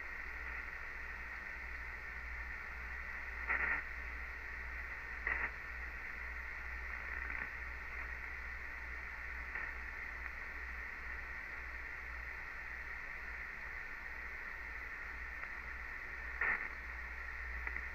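Icom 761 shortwave receiver hissing through its speaker on 40-metre single sideband with no one transmitting: a steady rush of band static with a low hum underneath, broken by three short crackles.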